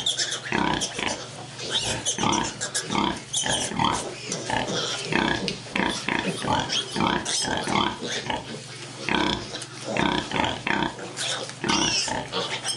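Tamworth cross sows grunting in quick short grunts as their newborn piglets suckle, with the piglets squealing and squeaking over the top.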